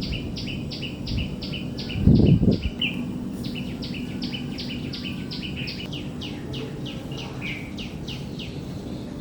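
A small bird singing a long series of short, rapidly repeated downward-sliding notes, about three or four a second, with a brief pause about three seconds in. A short loud low thump about two seconds in, over a steady low background rumble.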